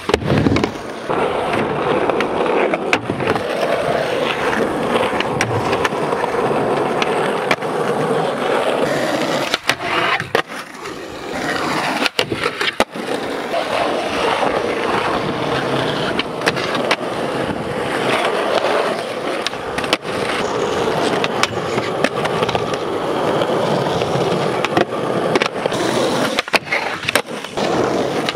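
Skateboard wheels rolling over a rough, worn skatepark surface in a steady gritty roar, broken by many sharp clacks of boards popping, slapping and landing.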